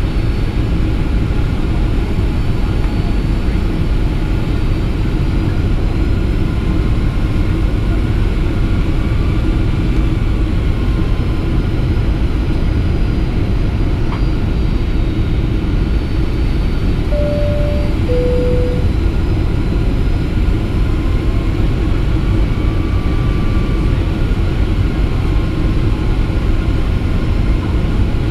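Steady loud rumble of a Boeing 757-300 airliner's cabin noise, engines and airflow, heard from a window seat while descending on approach. About 17 seconds in, a two-note cabin chime sounds, high then low.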